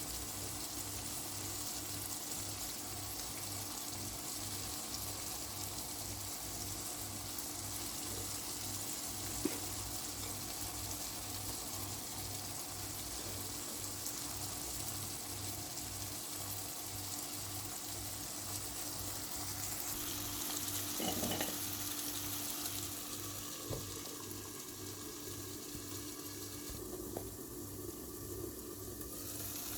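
Peppers frying in butter in a pan, a steady sizzle, with a single sharp tick about nine seconds in.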